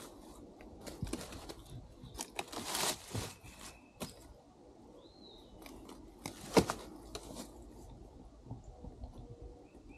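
Irregular crunching and rustling, loudest in a stretch about two to three seconds in and a sharp crack a little past six seconds, with a few bird chirps in the background.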